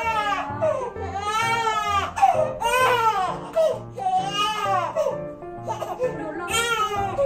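Newborn baby crying in a series of rising-and-falling wails, over soft background music with a steady beat.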